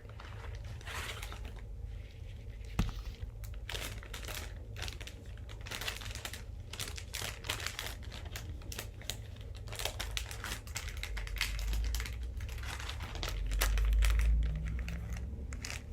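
Crinkling and rustling of a small mail package being handled, with scattered light clicks and taps.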